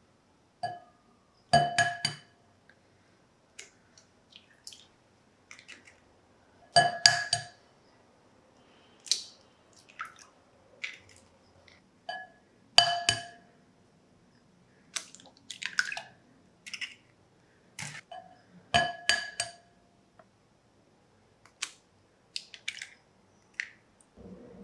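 Eggs cracked one at a time against a glass mixing bowl. Each crack is a sharp clink with the glass ringing briefly, four times in all, with softer clicks of shell being pulled apart in between.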